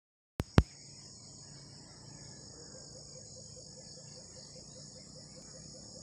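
Steady high-pitched chorus of insects trilling in tropical vegetation. Two sharp clicks come right at the start.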